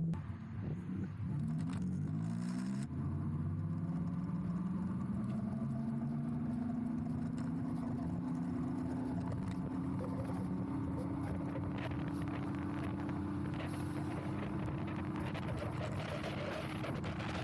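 Electric mini-bike's motor whining as it accelerates. The pitch climbs over the first several seconds, then holds nearly steady at speed, with wind and road noise underneath.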